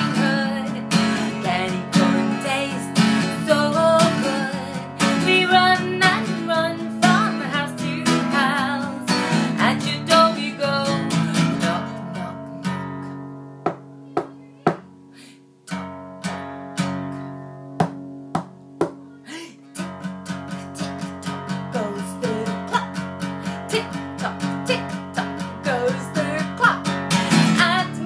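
Acoustic guitar strummed in a steady rhythm, with a woman's voice singing over it. About halfway through, the strumming thins to single strums left to ring. The steady strum comes back about twenty seconds in.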